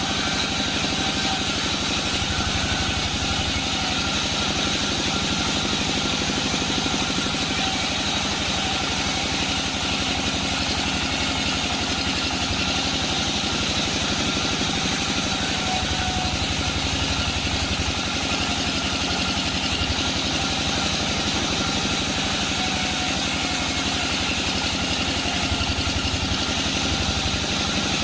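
Sawmill bandsaw machinery running steadily, a continuous engine-like drone with no break or change.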